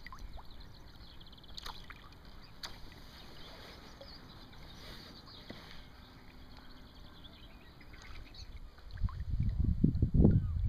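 Quiet open-air ambience on the water with a few faint, short bird chirps. About nine seconds in, loud irregular low buffeting hits the microphone and keeps on to the end.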